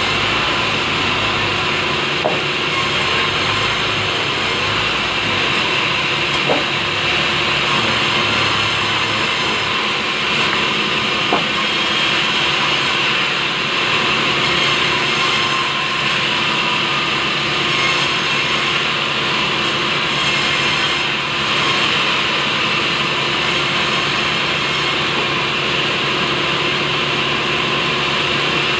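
Sawmill band saw running steadily as it cuts through a large log of soft wood, a continuous hissing whine. A few short knocks sound about 2, 6 and 11 seconds in.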